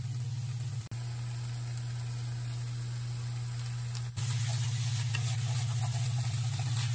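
Fried rice with ketchup sizzling in a frying pan over a steady low hum. From about four seconds in, wooden chopsticks stirring through the rice bring a louder sizzle and scraping. The sound breaks for an instant about a second in and again about four seconds in.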